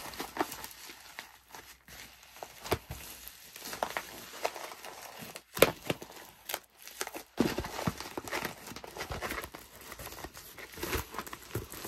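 Pink poly bubble mailer crinkling and rustling as hands fold its flap over, press the adhesive seal shut and handle it, in an irregular run of crackles with a few louder snaps near the middle.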